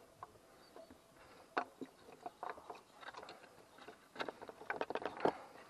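Scattered light clicks and knocks of metal parts being handled as the new accessory-belt tensioner pulley is worked into place on the engine, with a quicker cluster of clicks near the end.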